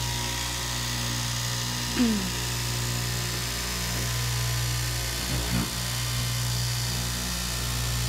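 Electric straight-knife cloth cutting machine running with a steady hum, its upright reciprocating blade cutting through layered fabric. A short sound falling in pitch comes about two seconds in.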